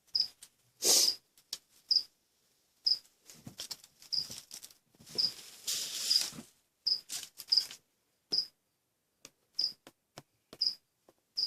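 A cricket chirping, one short high chirp about every second, with rustling and light knocks from handling in between.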